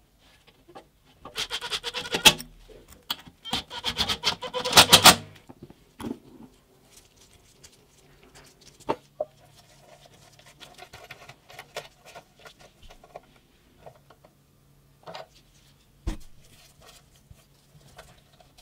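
Metal air fittings being handled and screwed together, with rapid clicking and scraping. It is loudest in a dense burst in the first few seconds, then comes as quieter scattered clicks, with a single sharp knock near the end.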